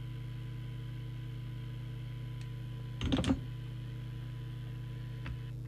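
Steady low electrical hum with a faint thin whine above it. About three seconds in there is a brief clatter of small sharp clicks, with a single tick before and after.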